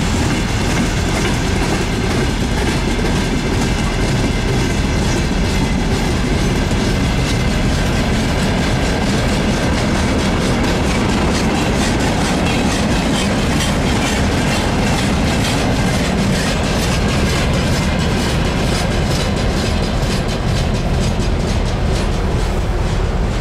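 Freight wagons (tank containers, boxcars and tank cars) rolling past close by, their wheels clicking over the rail joints in a steady clickety-clack.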